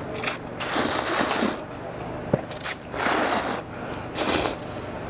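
A person slurping long noodles in a run of noisy slurps, the longest about a second, with a few quick sucking clicks in the middle.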